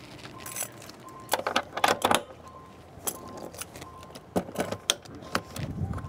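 Irregular sharp clicks and metallic rattles of brake air-hose fittings and couplings being handled and reconnected on the trailer brake demo board.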